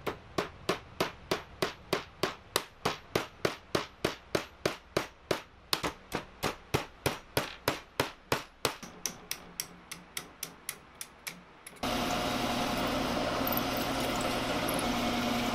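Hammer tapping on a stack of laser-cut steel plates, about three blows a second, the blows growing lighter after about nine seconds. Near the end it cuts abruptly to a drill press running, its bit drilling through the steel plate stack with a steady hum.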